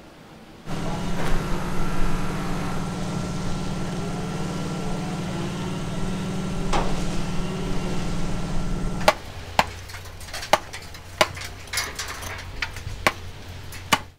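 A construction crane's motor runs steadily with a low hum. About 9 seconds in it gives way to a hammer driving a chisel into tuff stone, with sharp strikes about twice a second.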